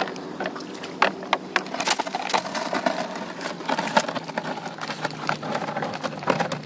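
Irregular wooden knocks and clatter from paddles against the hull of a wooden outrigger canoe as it is paddled.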